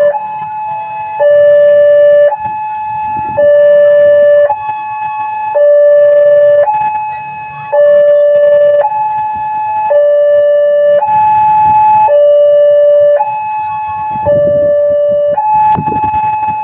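Railway level-crossing warning siren at the barrier gate, a loud electronic two-tone alarm alternating between a low and a higher tone about once a second, signalling an approaching train.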